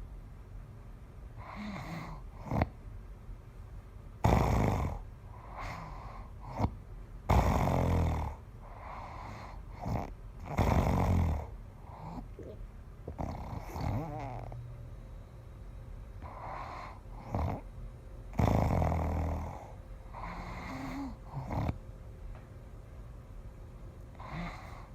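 A sleeping person snoring heavily, with irregular snores every few seconds, four of them much louder and rougher than the quieter breaths between. The snoring is bad enough that the recorder thinks it may be time to see a doctor.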